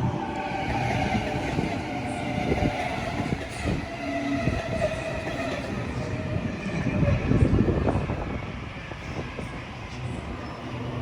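Electric double-deck passenger train moving through the station: its motors whine in steady tones that slowly drop in pitch, over a rumble with a few wheel knocks, loudest about seven seconds in.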